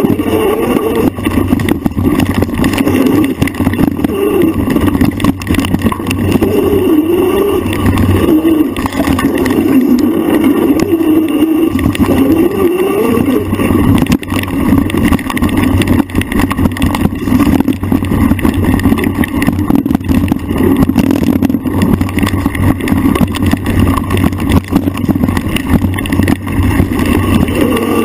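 A trail bike's motor running hard along a rough single track. Its pitch rises and falls as the throttle and speed change, over constant rattling and knocks from the bike bouncing across the ground.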